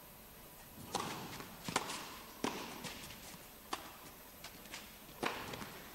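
Tennis ball struck by rackets and bouncing on the court during an indoor rally: a series of sharp, separate knocks, about five strong ones with a few fainter ones between, roughly a second apart.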